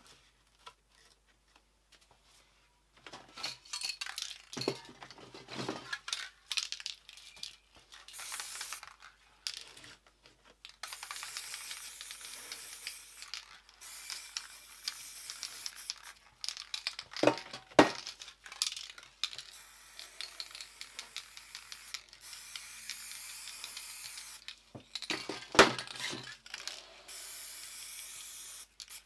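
Aerosol spray paint cans clinking and rattling, then spraying in several hissing bursts of a few seconds each, with two sharp metallic clicks from cans knocked against each other or set down.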